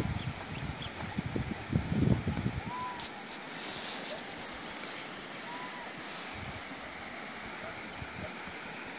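Outdoor hiss with wind buffeting the microphone in gusts and bumps over the first two seconds or so, then a steadier background; two faint short whistle-like calls stand out, a few seconds apart.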